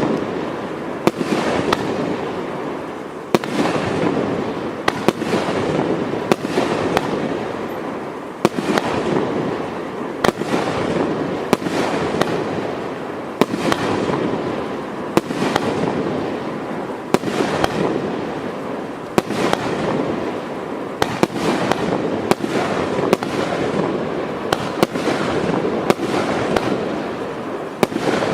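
TKB502 'Galaktika Andromedy' multi-shot firework cake firing: sharp cracks about once a second, with a dense crackling hiss between the shots.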